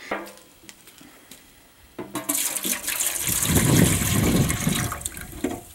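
Zinc phosphate parkerizing solution poured from a plastic measuring jug into an empty metal epoxy resin can: a splashing pour that starts suddenly about two seconds in and runs for about three seconds.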